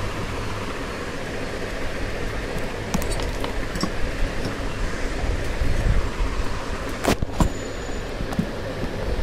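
Handling noise and a few sharp clicks, the loudest about seven seconds in, as a 3.5 mm audio jack is pushed into a mobile phone's headphone socket, over a steady low hum and hiss.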